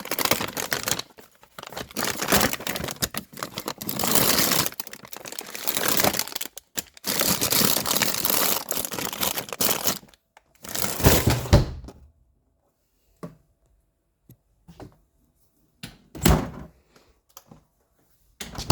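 Crinkling and rustling, as of plastic or paper being handled, in long bursts for about twelve seconds, then a few scattered knocks and a short rustle.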